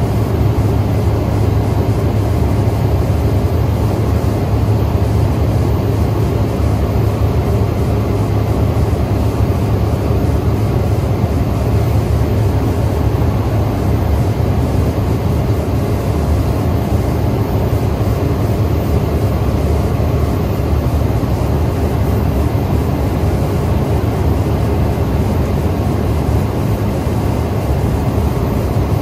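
Cessna Caravan in flight, heard from inside the cabin: its single Pratt & Whitney PT6A turboprop engine and propeller make a steady low drone over rushing airflow noise.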